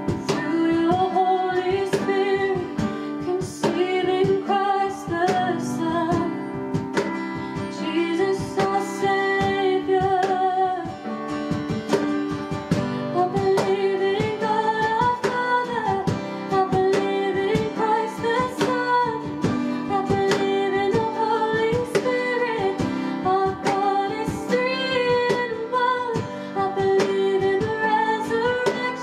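A worship song: a voice singing a melody to strummed acoustic guitar.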